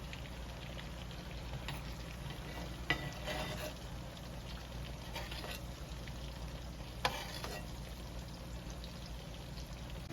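T-bone steak and lamb chops sizzling steadily in melted garlic butter in a frying pan, with two sharp clicks about three and seven seconds in.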